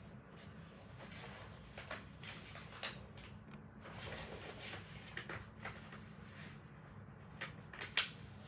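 Sheets of paper being handled and rolled at a desk: scattered rustles and light taps, with a sharper click about three seconds in and another near the end, over a steady low hum.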